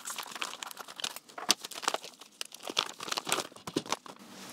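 Clear plastic bag crinkling and rustling as a filament refill roll is pulled out of it by hand, a dense run of irregular crackles.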